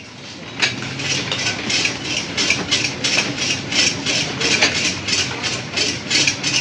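Juice-stall work at a hand-lever citrus press: halved citrus fruit being pressed and handled, with a quick, regular run of scraping, hissing sounds about three a second.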